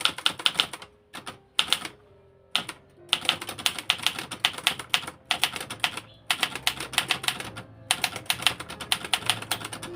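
Olivetti Dora manual typewriter being typed on: quick runs of sharp key and typebar strikes broken by short pauses, with a longer pause a little after a second in.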